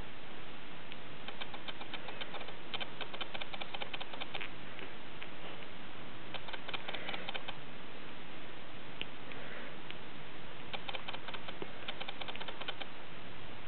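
Bengal kittens nursing from their mother: bursts of fast, fine clicking from suckling and jostling, coming and going several times.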